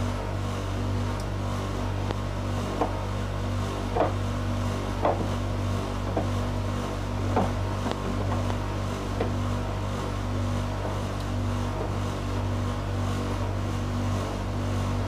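Domestic laundry machine running: a steady motor hum, with light irregular knocks about once a second through the first half as the load tumbles in the drum.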